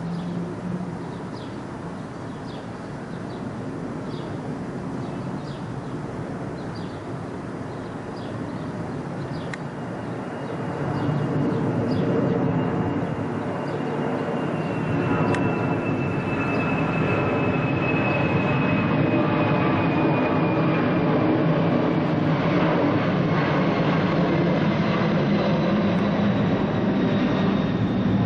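Boeing 747 freighter's four jet engines at climb power passing overhead: a steady jet rumble that grows louder about ten seconds in and again around fifteen seconds, with a high whine slowly falling in pitch as the plane goes over.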